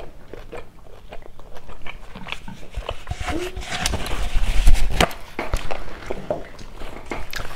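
Paper towel rustling and tearing as a sheet is pulled off the roll close to a clip-on microphone, loudest just before five seconds in, amid small clicks of eating.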